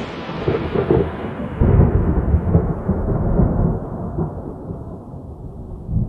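AI-generated thunderstorm sound effect playing: rolling thunder, loudest about two seconds in, then slowly dying away.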